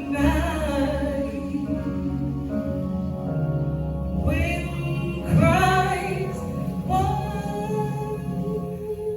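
Live gospel music: a woman singing held, sliding phrases over sustained keyboard and bass accompaniment.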